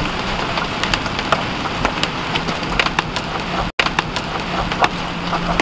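Hail and heavy rain pelting a vehicle's roof and windshield, heard from inside the cab: a steady hiss of rain with many sharp separate hailstone hits. The sound drops out for an instant a little past the middle.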